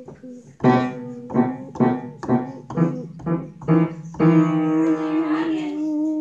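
Piano-toned keyboard music: a run of about eight short struck notes, then one long held note that slides upward in pitch near the end.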